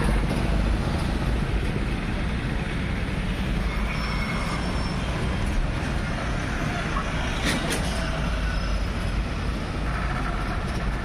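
Steady street traffic noise with the low rumble of passing vehicles, and a single sharp knock about seven and a half seconds in.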